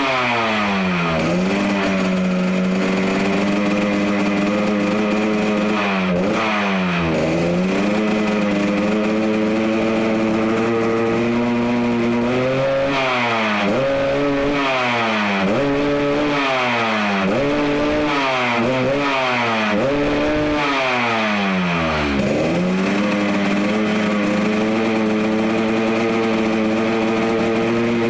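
Yamaha RX-King two-stroke single-cylinder engine running at a steady raised idle, blipped up and down on the throttle again and again, with a quick run of revs in the middle, while it is tuned for the deep 'ngorok' snoring exhaust note.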